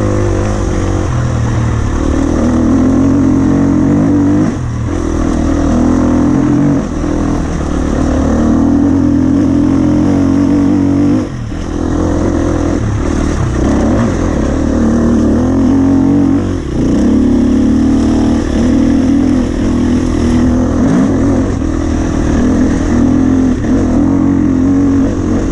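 Husqvarna FE 250 four-stroke single-cylinder enduro engine being ridden hard, its revs rising and falling. There are brief drops in loudness where the throttle shuts off, a few times through the stretch.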